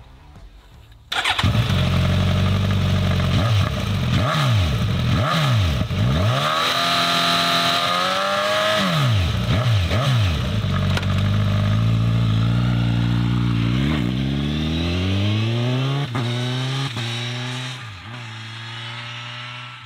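Suzuki GSX-S1000 inline-four running through a Bodis GPC-RSII slip-on exhaust, cutting in suddenly about a second in. Its note rises and falls with the throttle, then climbs steadily for a couple of seconds and falls back, quieter near the end.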